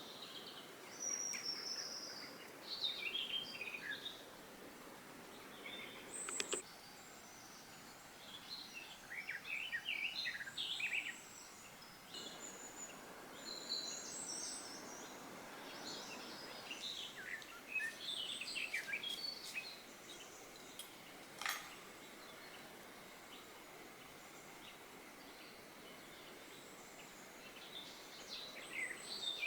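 Several songbirds singing in short chirping and trilling phrases with pauses between them. Two sharp clicks come in, about six seconds apart and then about fifteen seconds later.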